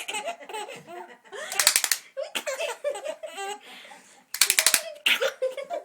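A baby laughing in repeated loud bursts, with pitched giggling sounds between them.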